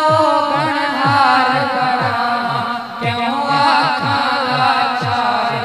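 A man singing a Punjabi naat into a microphone, amplified, drawing out long ornamented notes without clear words, over a steady low pulsing beat of about two to three strokes a second.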